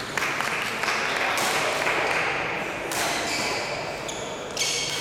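Indoor racket-match court sounds: a few sharp hits, a stretch of noisy hubbub, and a high squeak near the end, typical of a court shoe.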